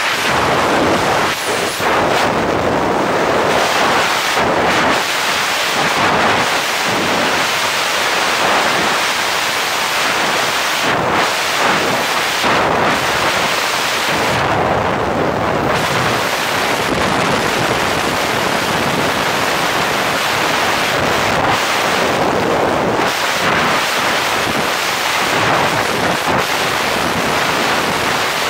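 Freefall wind rushing over a helmet-mounted GoPro 360 camera's microphone: a loud, steady rush of noise that dulls briefly in its upper range every few seconds.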